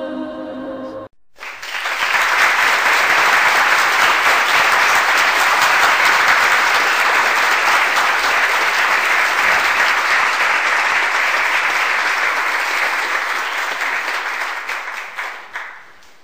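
A crowd applauding: steady, dense clapping that swells up quickly and holds for about fourteen seconds, then fades out near the end. A second of soft music comes first and cuts off abruptly.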